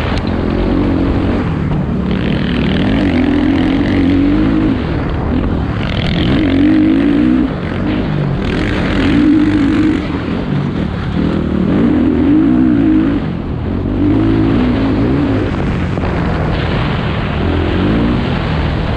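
KTM 450 dirt bike's single-cylinder four-stroke engine revving up and down again and again as the bike is ridden along a dirt trail, heard from on the bike.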